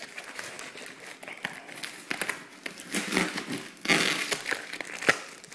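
Plastic wrapping crinkling and a cardboard shipping box rustling as it is handled, in irregular bursts with small clicks. It is louder about three to four seconds in, and there is a sharp click near the end.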